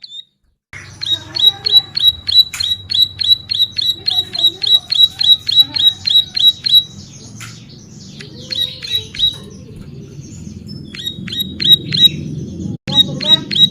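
Ciblek sawah (a prinia) singing: fast runs of repeated chirps, about four a second, that break into a jumbled, varied phrase near the middle and then start again.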